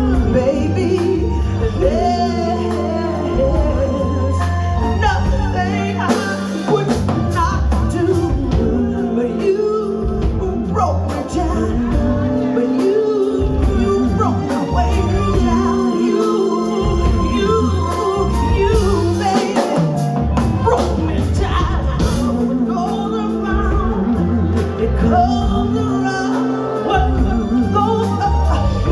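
Live soul band playing, with a pulsing bass line and steady drum beat, and some singing over the groove.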